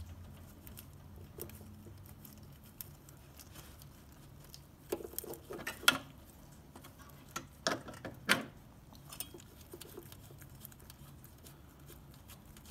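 Light metallic clicks and clinks of hand tools working loose the mounting nut of a classic Fiat 500's fuel pump, in two short clusters about five and eight seconds in, with a few faint ticks between.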